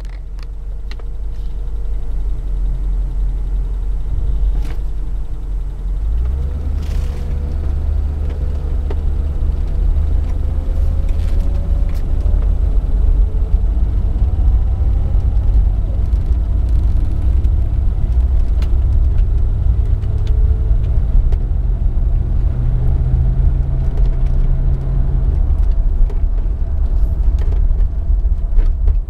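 1999 Land Rover Discovery II engine running with a loud, fast clicking or ticking, like a card in bicycle spokes. The owner suspects the upper intake manifold or a switch or valve, and rules out the lifters. The engine's low note shifts up about six seconds in.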